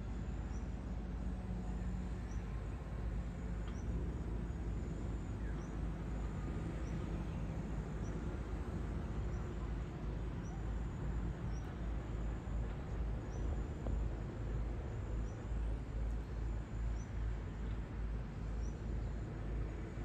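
Distant heavy construction machinery, an excavator among it, running as a steady low rumble with an engine hum. A small high chirp repeats every second or so over it.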